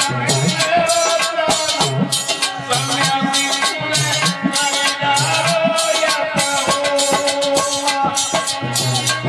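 Live Indian devotional folk song: a man singing over harmonium, with a hand drum whose low notes bend in pitch and a shaker keeping a fast, even beat.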